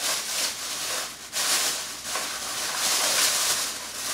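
Plastic bag rustling and crinkling as an item is unwrapped from it by hand, in a few stretches broken by short pauses.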